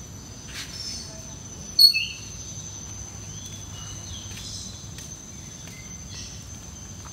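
Birds and insects in an aviary: a steady high-pitched insect drone, with one short, loud bird squawk about two seconds in and a few fainter chirps after it.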